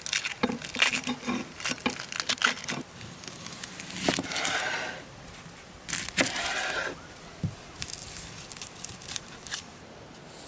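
Red onion being peeled and cut with a chef's knife on a wooden cutting board: crackling and tearing of the papery skin, then two long slicing strokes through the onion a few seconds in, followed by scattered light knife taps.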